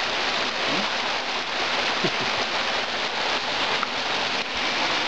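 Small waterfall rushing steadily as the creek pours over the rock lip and splashes into a pool below.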